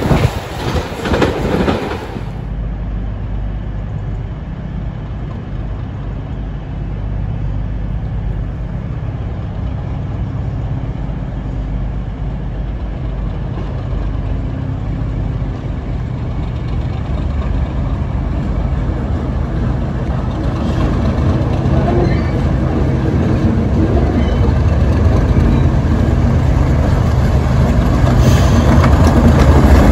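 Class 37 diesel locomotive's English Electric V12 engine running with a steady low rumble as the locomotive approaches, growing steadily louder. The first two seconds hold a louder rush of train noise that cuts off abruptly.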